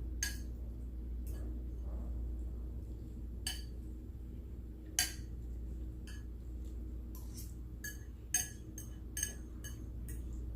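Scattered light clinks and taps on a dinner plate while eating, with a quicker run of them from about seven to nine and a half seconds in, over a steady low hum.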